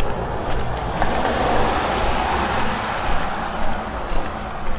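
A vehicle passing by: a rush of noise that builds about a second in and fades away near the end.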